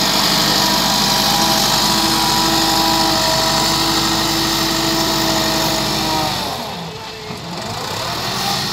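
Massey Ferguson 385 tractor's four-cylinder diesel engine running hard at steady revs while trying to pull a loaded trailer. About six and a half seconds in, the engine note drops and then climbs back.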